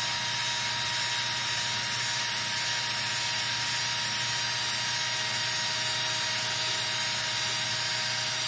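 Electric drill running at a steady speed with a constant whine, spinning a leather drive punch whose edge is being honed on a 600 grit stone. It cuts off suddenly at the very end.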